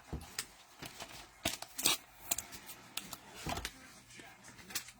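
Trading cards and cello pack wrappers being handled on a table: irregular light clicks and short rustles, the loudest about two seconds in.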